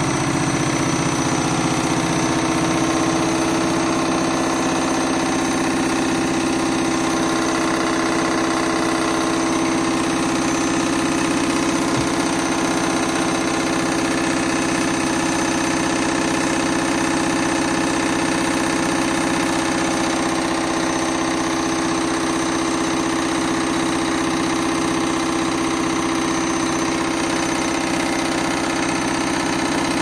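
Front-loading washing machine on its final spin, the drum turning at speed with a steady hum. The owner is not sure whether the machine's counterbalance weight has broken.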